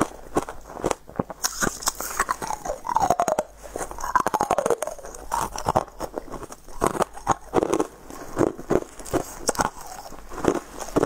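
Biting into and crunching frozen dark ice cubes, a dense run of sharp crackling crunches and chewing. Two short falling squeaks come near the middle.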